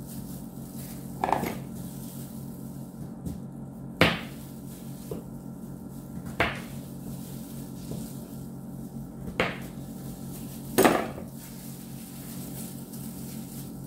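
Kitchen prep knocks: about five sharp clunks, a second or two apart, as a knife and cut potato pieces strike an enamel roasting pan and a plastic cutting board, over a steady low hum.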